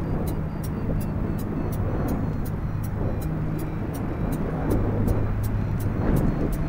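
Wind rushing over the camera microphone in paragliding flight: a steady, loud, low rumble.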